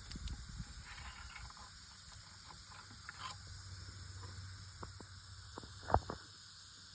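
Faint rustles and light taps over a steady high hiss, with one louder knock about six seconds in, as a bucket of baby garter snakes is tipped out onto the ground.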